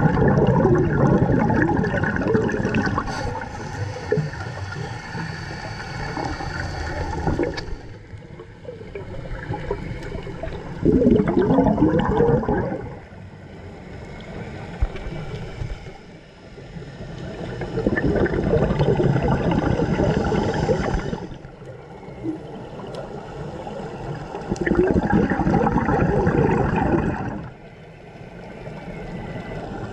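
Scuba regulator breathing heard underwater: loud gurgling bursts of exhaled bubbles every six or seven seconds, with quieter stretches between breaths.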